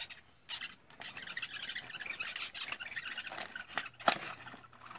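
Small plastic Hatchimals CollEGGtibles egg cracking open in a plastic toy hatchery as a child works it: a run of fine crackling and squeaky scraping, ending in a couple of sharp clicks.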